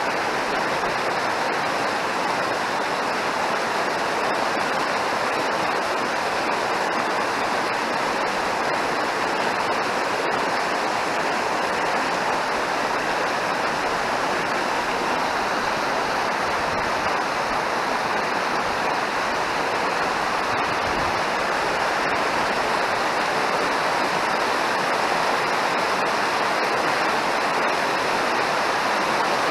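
Mountain river rushing over rocks, a steady even wash of water that holds unchanged throughout.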